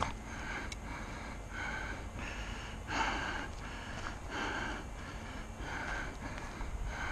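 A man breathing hard and fast, in short puffs a little more than one a second.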